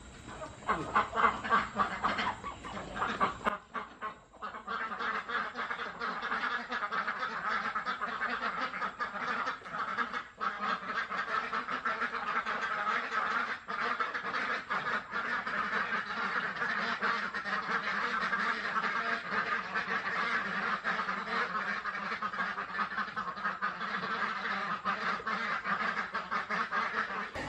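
Domestic ducks quacking on and on in a rapid, steady chatter.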